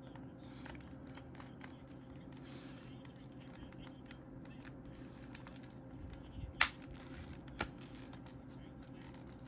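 Fingernails picking and scratching at the plastic shrink-wrap on a CD case, a run of small clicks and scratches with a sharp tap about six and a half seconds in and a lighter one a second later.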